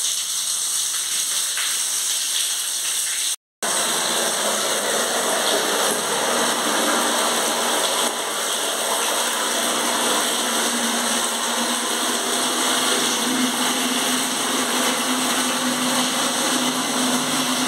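Water running steadily from two wall taps, hot and cold, splashing over a hand. After a short break about three and a half seconds in, it pours into a plastic bucket, louder and fuller.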